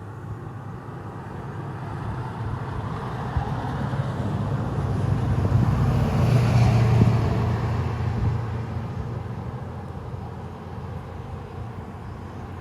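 A road vehicle driving past: its low engine and tyre noise builds for about six seconds, is loudest around six to seven seconds in, then fades away.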